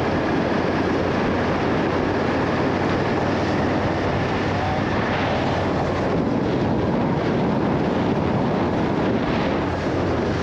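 Motorcycle under way on the road: a steady engine drone under constant wind rush on the microphone.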